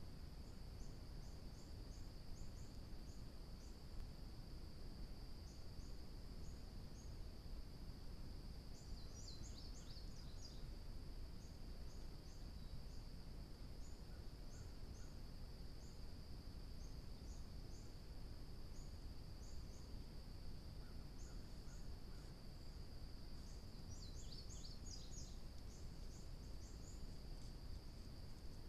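Insect chorus: a steady high trill with quick repeated chirps above it, over a low background rumble. Two short flurries of higher chirps come about nine seconds in and again near the end.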